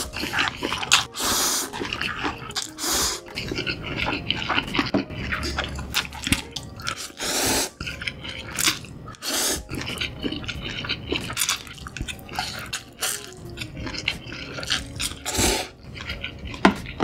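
Close-miked noodle eating: a run of loud, wet slurps of noodles sucked in from a bowl, with chewing between them.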